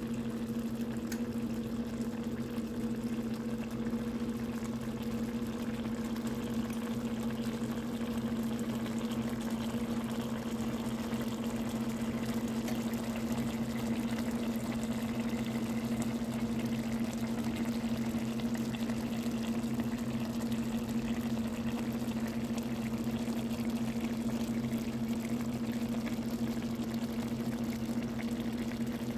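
Corned beef and cabbage simmering in broth in a skillet: steady bubbling with faint crackles, over a constant low hum.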